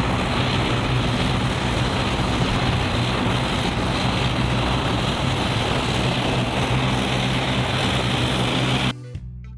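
De Havilland Canada Dash 8 Q400's two Pratt & Whitney PW150A turboprop engines running, their six-bladed propellers turning as the airliner taxis: a steady low drone under a rushing propeller noise. It cuts off sharply about nine seconds in.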